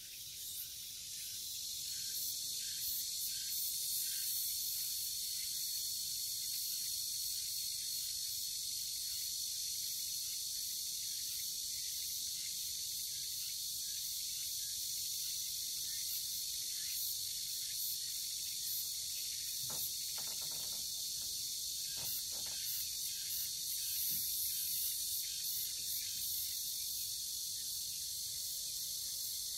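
Steady high-pitched chorus of insects, a continuous shrill drone with a thin steady whine in it, setting in about a second in.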